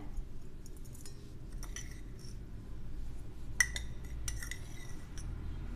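Steel spoon clinking against stainless steel vessels while ground coffee is scooped into a South Indian coffee filter: a few sharp metallic clinks with a short ring, the loudest about three and a half seconds in.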